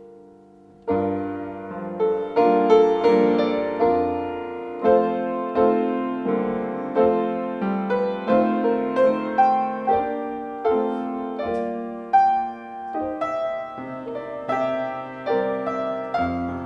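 Piano playing a slow, steady passage of struck chords and melody notes, each note dying away. It comes in about a second in, after a faint fading note.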